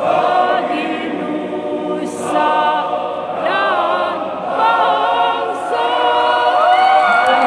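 A choir singing in several parts, the voices moving together through held chords; near the end they slide up into a loud sustained chord.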